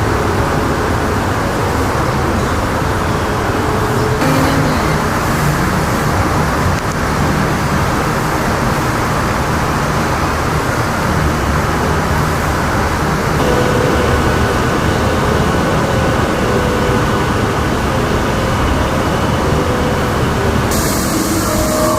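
Steady road traffic noise, with a faint engine hum.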